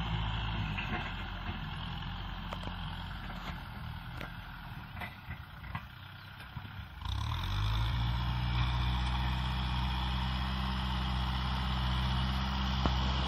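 Kubota M6040 SU tractor's four-cylinder diesel engine working under load as its front blade pushes soil. The engine note fades for a few seconds midway, with scattered clicks. About seven seconds in it comes back loud, briefly rising in pitch, then runs steady.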